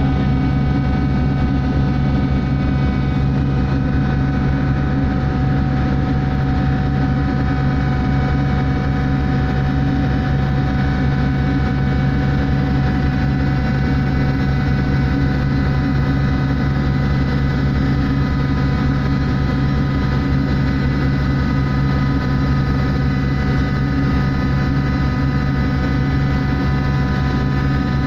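Steady drone of a ship's machinery: a strong low hum with several steady tones above it, unchanging throughout.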